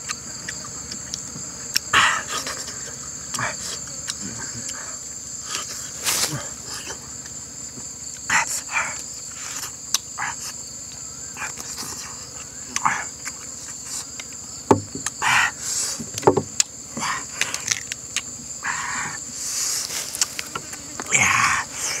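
A steady, high insect chorus, with short, irregular sounds of a man eating roast duck over it: chewing, smacking and tearing the meat off a bamboo skewer.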